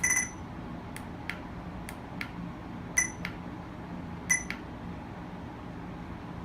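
Radar detector giving three short high beeps: one at the start, one about three seconds in and one just after four seconds. Several light clicks fall between them, over a faint steady low hum.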